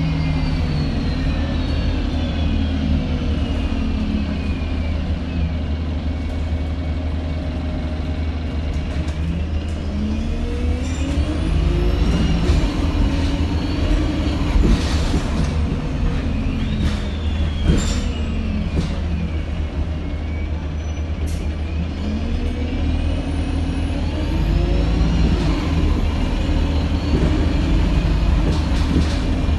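Alexander Dennis Enviro 200 MMC single-deck bus heard from inside the passenger saloon while under way: a steady engine and road rumble. The engine note falls away at the start, then climbs about ten seconds in and again a little after twenty seconds in as the revs rise. A few short knocks and rattles come from the bus body.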